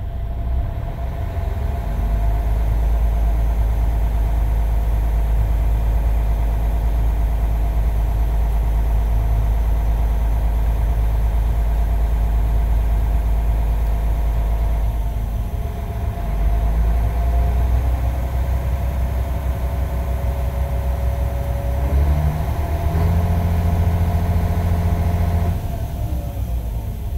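Mercedes-Benz OM457 hLA inline-six turbodiesel in a Tourismo coach, revved in neutral with the engine still below operating temperature. It is held at raised revs, dips briefly, then climbs in steps to a higher held rev before falling back toward idle near the end.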